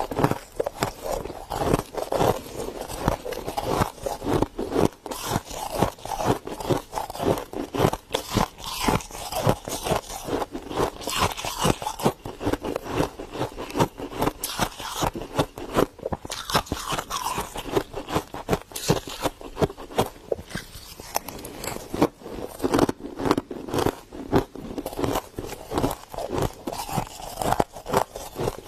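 Soft freezer frost being crunched up close: a dense, continuous run of crisp crackling crunches.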